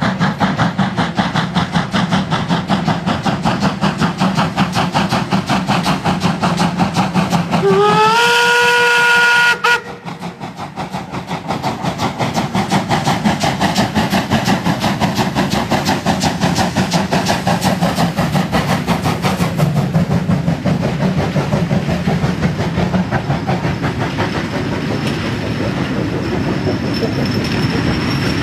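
Steam locomotive hauling a heavy freight train, its exhaust chuffing in a rapid, steady rhythm. About eight seconds in its steam whistle blows for about two seconds, sliding up and then holding one note before cutting off sharply. Later the loaded flat wagons roll past, wheels clicking over the rail joints.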